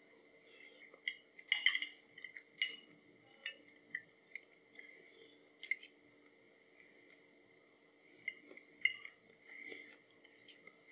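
Close-up slurping and chewing of spaghetti: irregular wet mouth smacks and clicks, a cluster about a second and a half in and another near nine seconds, over a faint steady tone.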